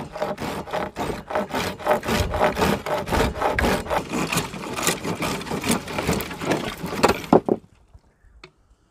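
A coarse-toothed reciprocating saw blade, worked by hand as a field-made saw, cutting through a dry Osage orange branch in rapid back-and-forth strokes. The teeth bite in hard and the blade plows through the dry wood. The sawing stops about seven and a half seconds in, followed by a faint click or two.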